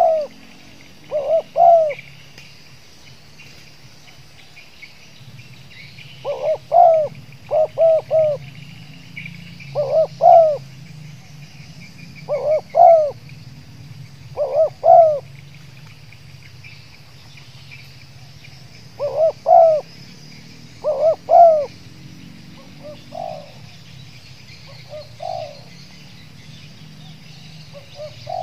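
Spotted dove cooing in short phrases of two to four quick notes, repeated every few seconds with a few longer pauses. This is the stuttering 'gagap' call style kept in tekukur decoy birds. The last phrases are fainter. A steady chorus of insects runs underneath.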